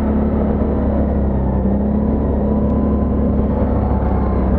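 ATV engine running at a steady speed, a steady low drone throughout.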